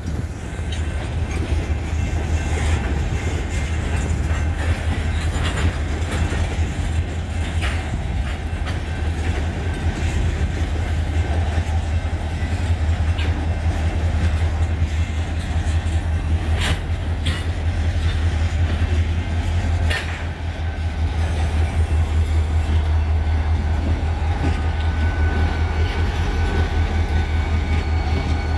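Freight train tank cars rolling slowly over a grade crossing: a steady low rumble with irregular sharp clacks of wheels over the rail joints. A faint high squeal comes in near the end.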